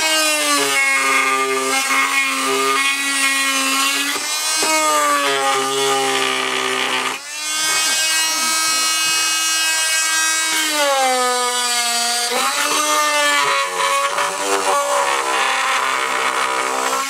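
Chicago Electric oscillating multi-tool with a carbide tile and masonry blade running, a loud buzzing whine whose pitch sags and recovers several times as it cuts the mortar along the edge of an old floor tile. The sound dips briefly about seven seconds in, then runs on.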